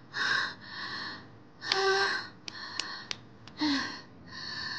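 A young woman gasping in pain, a run of short sharp breaths, two of them breaking into a brief voiced 'ah', as a medicinal plaster is pressed onto her sore back. A few faint clicks come in the middle.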